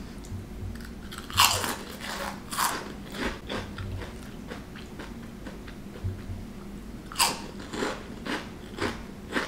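Pipcorn heirloom-corn cinnamon twists being bitten and chewed: loud crunches about a second and a half in and again a second later, then smaller chewing crunches, and another loud bite about seven seconds in.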